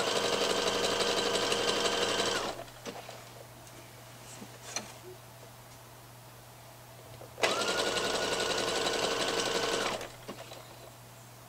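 Electric domestic sewing machine stitching a jersey side seam in two runs of about two and a half seconds each, the second starting some five seconds after the first stops. A few light clicks come in the pause as the striped fabric is realigned to match the stripes.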